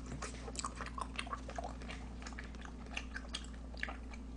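Chewing a mouthful of spicy tteokbokki rice cakes: irregular wet mouth clicks and smacks, over a steady low hum.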